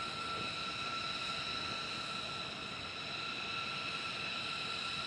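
B-2 Spirit's General Electric F118 turbofan engines running on the ground: a steady jet whine with several high tones over a constant rushing noise.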